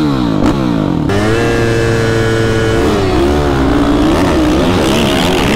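Motocross bike engines accelerating hard off a start: the pitch falls in the first second, holds high and steady for about two seconds, then rises and dips repeatedly with the throttle.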